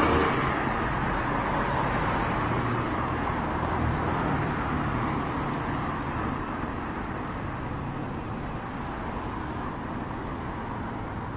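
Road traffic on a city street: cars running and passing, a steady hum of engines and tyres that slowly fades.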